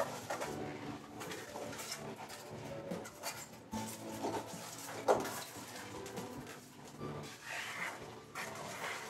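Pink foam insulation boards squeaking and rubbing against each other as they are pushed and slid into line, with scattered light knocks and one sharp knock about five seconds in.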